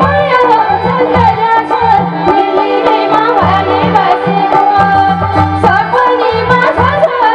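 Live Nepali dohori folk music: a steady hand-drum rhythm under a wavering melody line.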